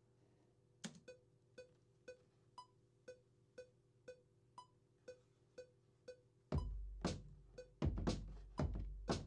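Software metronome clicking at 120 BPM, a higher click on the first beat of each bar. About six and a half seconds in, an 808 drum kit joins, a booming 808 kick and snare hits, as a beat is recorded into Native Instruments Maschine.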